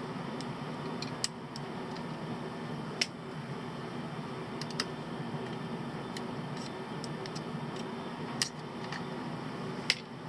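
Sharp small clicks and taps of hand tools and small parts handled while taking a multimeter apart, a handful spread irregularly, over a steady low hum.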